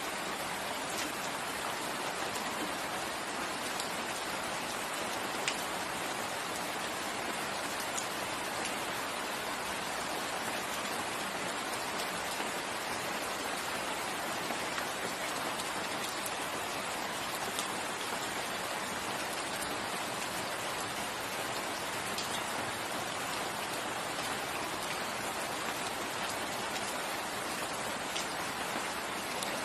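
Steady rainfall, an even hiss of rain with scattered sharper drop ticks and no change in intensity.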